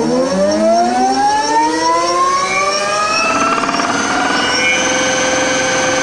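In-wheel electric hub motor spinning a wheel up to speed: a rising whine that climbs quickly at first, then levels off into a steady high whine about halfway through.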